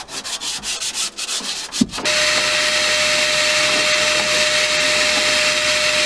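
Quick back-and-forth hand sanding on the fiberglass inside a boat hull, about five strokes a second. About two seconds in, a wet/dry shop vacuum takes over, running loud and steady with a single whine over its rushing noise.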